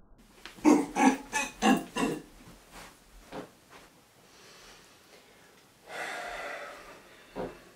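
A person's voice off to one side: a quick run of five loud, grunting snorts in about a second and a half, then a few softer ones and a breathy rush of air about six seconds in.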